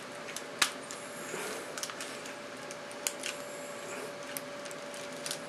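Small plastic clicks and handling noise as a 1/6-scale action figure's hand and forearm parts are clipped back into place, the loudest click about half a second in.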